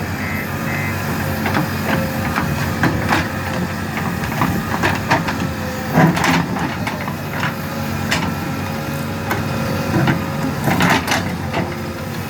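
JCB 3DX Plus backhoe loader's diesel engine running steadily under work, with repeated sharp knocks and clatters from the machines working.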